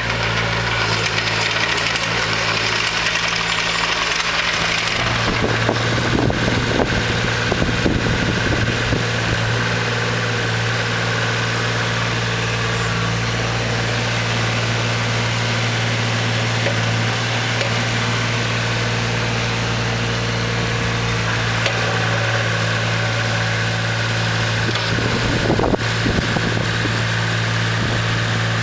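JCB 8018 mini excavator's diesel engine running at a steady idle, with a few short knocks about six to eight seconds in.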